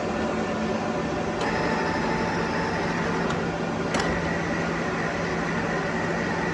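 Sculfort Maxicap Senior parallel lathe running, a steady mechanical noise with a constant low hum. About one and a half seconds in a higher whine joins, and a sharp click comes about four seconds in.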